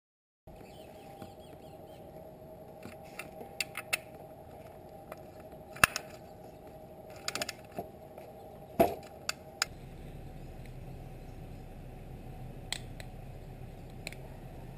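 Scattered sharp metallic clicks and knocks from hand work under a motorcycle's engine during an oil change, over a steady low hum. The loudest is a single knock with a brief ring about nine seconds in.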